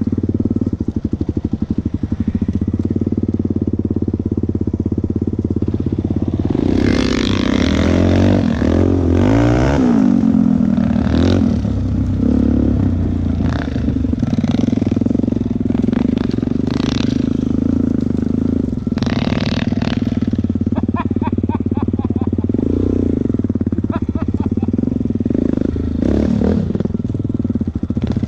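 Quad bike (ATV) engine running at low speed over rough ground, revving up and down about seven to ten seconds in, with short scraping and knocking noises over it.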